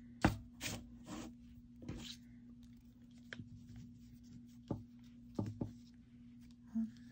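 Yarn being worked on a knitting loom by hand: scattered light clicks and short brushing rustles, the sharpest click just after the start and a few more past the middle. A steady low hum sounds throughout.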